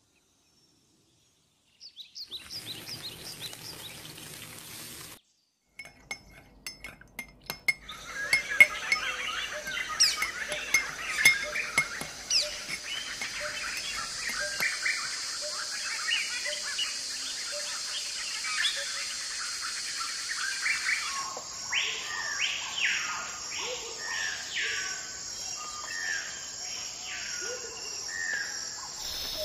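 Birds chirping over a steady high-pitched drone, with scattered clicks and clinks of a spoon and hands working in a steel mixing bowl. It starts after a brief silence and changes character at a couple of cuts.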